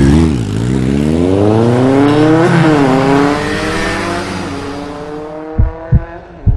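Motor scooter engine revving in the music track: its pitch climbs, dips briefly and climbs again, then holds steady while fading. Three deep bass thumps come near the end.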